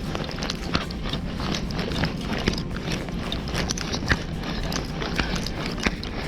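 Footsteps on a hard surface: a quick, uneven clatter of steps over a steady low rumble.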